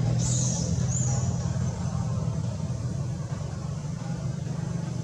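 Steady low rumble of a running motor, with two short, high squeaks that slide downward in the first second.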